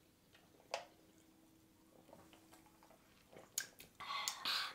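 Sips of Coca-Cola from cans: faint swallowing and small mouth and can clicks, with a sharper click under a second in and a breathy exhale near the end.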